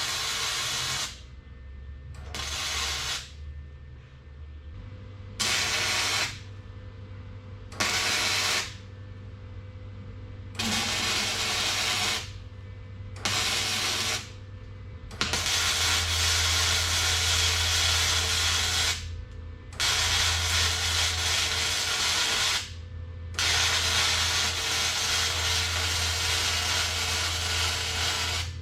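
Electric welder laying a series of weld beads in short bursts that start and stop abruptly, about nine of them, the later ones several seconds long, with a steady hiss and crackle over a low hum: tacking and welding a steel bracket in place.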